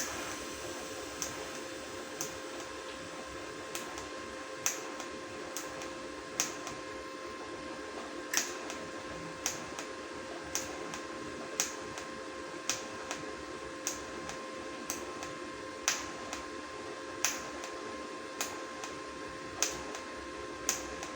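TIG welding arc buzzing steadily, with sharp ticks about once a second.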